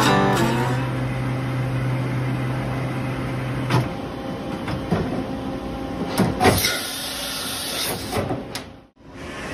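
Okuma MC-50VA CNC vertical machining center running: a steady mechanical hum with a low tone that stops about four seconds in, and a scattering of sharp clicks and clunks from the machine.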